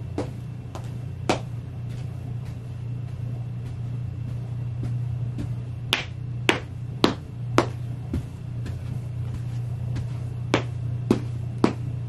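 Ugg boots stomping on a clear plastic chair mat: sharp slaps, two near the start, a run of four about six to eight seconds in, and three more near the end. A steady low hum runs underneath.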